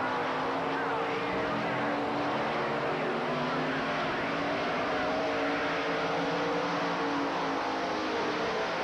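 Dirt late model race cars at speed, several engines running at once. Their pitches waver up and down over a steady hiss.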